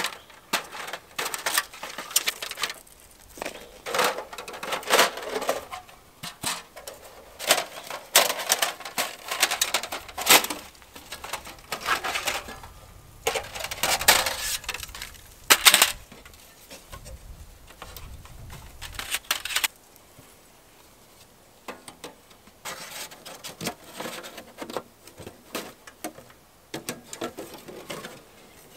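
Thin titanium panels of a foldable wood stove being handled and unfolded: irregular light metallic clinks, clatters and scrapes, with rustling of the stove's carry bag.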